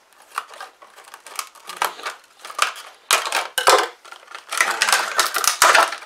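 Scissors cutting through a stiff plastic clamshell blister pack, then the plastic crackling and snapping as it is pulled apart to free the wrench. Sparse crackles at first, growing denser and louder in the second half.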